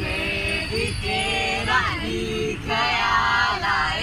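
A small group of young men and women singing a Hindi film song together without accompaniment, in long held phrases, with street traffic noise underneath.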